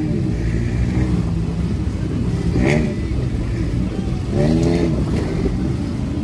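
Off-road vehicle engine running under load on a rock trail, revving up and back down twice, about two and a half seconds and four and a half seconds in.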